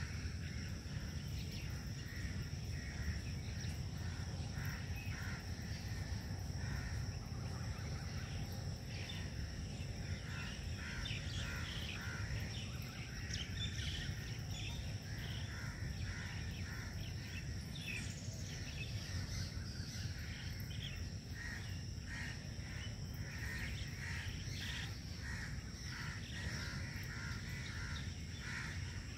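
Outdoor ambience: birds calling over and over, short calls repeated all through, above a steady low rumble.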